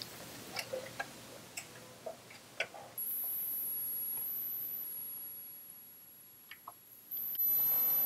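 A floppy disk is slid into an Atari 8-bit floppy disk drive and the drive door latches, a series of sharp clicks. About three seconds in, the system is powered on and the drive starts running with a steady whir and a thin high whine. A few more clicks come later, and the running sound steps up louder shortly before the end.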